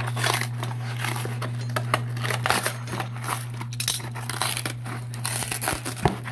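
Cardboard box being opened: packing tape slit with a utility knife and the cardboard flaps torn and crinkled open, in irregular rustling, scraping and tearing. A sharp knock comes near the end.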